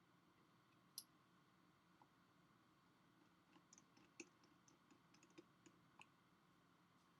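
Near silence broken by faint, sharp little clicks: a single click about a second in, then a quick scattered run of a dozen or so small clicks a few seconds later.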